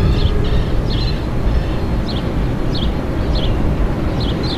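Distant steam train crossing a steel truss bridge: a steady low rumble, with a short high chirp repeating about every half second.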